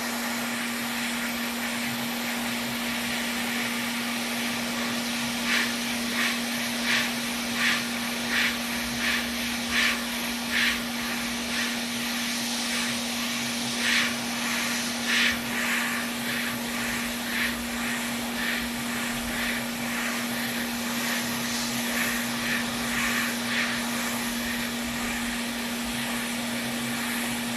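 Hot-air rework station blowing steadily, with a constant low hum under the hiss, during removal of a PS5's HDMI port. Short bursts of sound come every second or so through the middle of the stretch.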